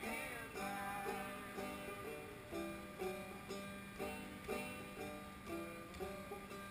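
Banjo picked in a steady rhythm, about two notes a second, over a steady low tone.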